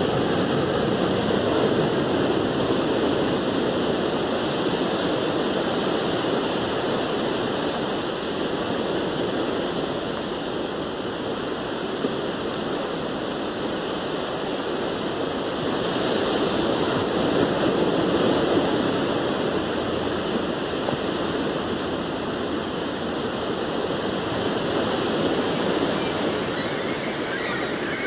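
Sea waves breaking and washing on a beach: a continuous rush of surf that swells near the start and again about halfway through.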